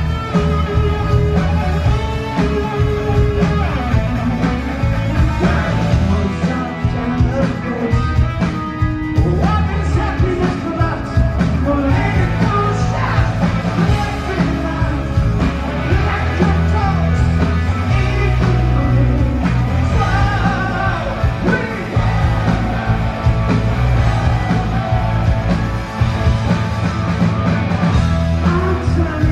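Rock band playing live: electric guitar, drums and a male lead vocal singing.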